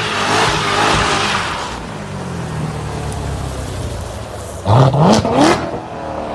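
Corvette V8 engine running while the tyre noise of a slide or burnout fades out in the first two seconds. The engine then settles and gives three quick, sharp revs about five seconds in.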